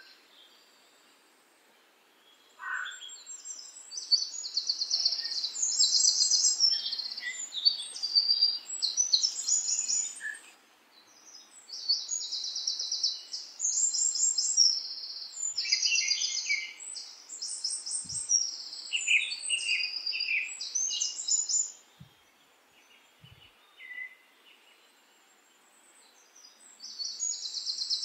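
Songbirds chirping and trilling in quick, high runs of notes. There are pauses of near silence in the first couple of seconds and again for a few seconds near the end.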